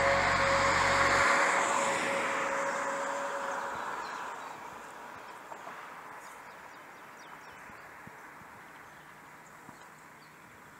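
Background music ends about a second in. Then a broad rushing noise fades away steadily over several seconds, like a vehicle passing and receding.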